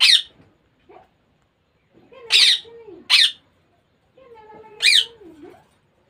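Baby Indian ringneck parakeet squawking harshly four times, short calls spaced about a second or more apart, with quieter wavering calls between them: the begging calls of a chick being hand-fed from a syringe.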